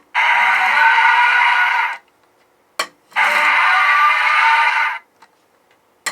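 A DX VroCanGatling electronic toy sounding through its small built-in speaker. Each of three button clicks sets off an electronic sound clip of about two seconds. Two clips play out in full, and a third starts near the end.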